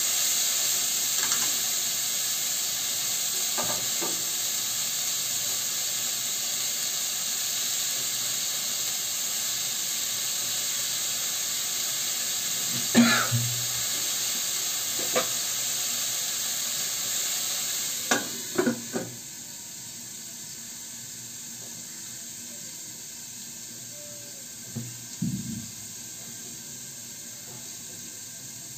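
Bitter gourd and potato slices frying in oil in an aluminium kadai: a steady sizzle broken by a few sharp metal clinks. About two-thirds of the way in, after a short clatter, the sizzle drops to a quieter hiss as the pan is covered with its lid.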